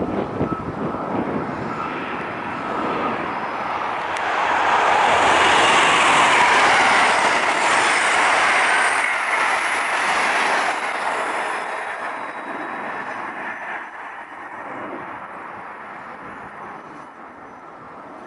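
Amtrak passenger train of Amfleet coaches passing at speed: the rush of wheels on rail and air around the cars builds to a peak about a third of the way in, then fades as the train draws away.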